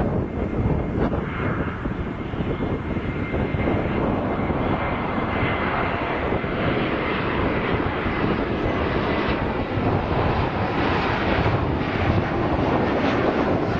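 Airbus A321neo airliner on final approach with its landing gear down. Its jet engines give a steady rumble with a thin high whine over it, growing a little louder as it nears.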